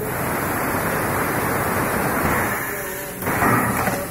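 A steady, loud rushing hiss of air for about three seconds, dying away near the end: compressed air venting from a PET bottle blow moulding machine.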